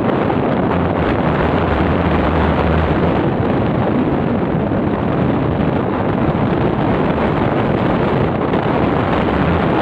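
Wind buffeting the microphone on a moving motorbike: a loud, steady rush with a low rumble of engine and road noise underneath.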